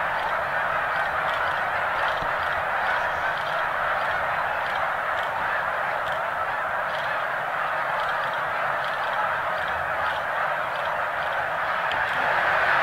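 Thousands of snow geese honking together as the flock lifts off the water: a dense, unbroken din of overlapping calls with no single voice standing out.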